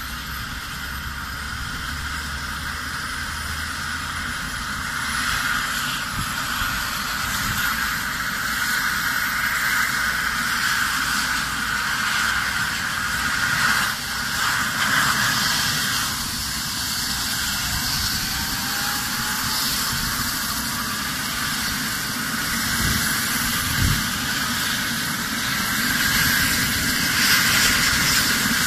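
Rescue helicopter's turbine engines running up on the ground: a high whine and hiss that rises in pitch and grows steadily louder.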